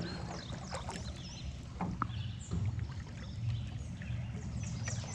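Small fishing boat on the water: scattered knocks and clunks of gear against the hull over a low steady rumble, with water sounds as the trot line is reached.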